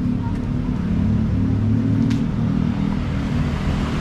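Street traffic: motor vehicles running close by with a steady low engine rumble.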